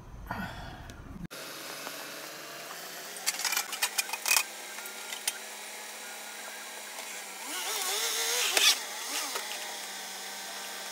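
Dodge Journey's 3.5 L V6 idling steadily, without the ticking that shows at cold start. A few sharp clicks come about three to four seconds in, and a brief louder wavering noise near eight seconds in.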